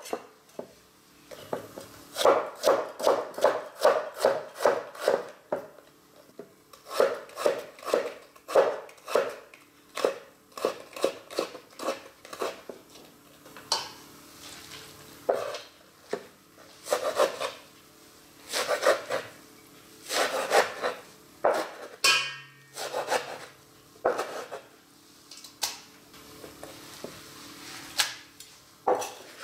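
Kitchen knife chopping white radish on a wooden cutting board: runs of quick knife strikes on the board, about four to five a second, broken by short pauses.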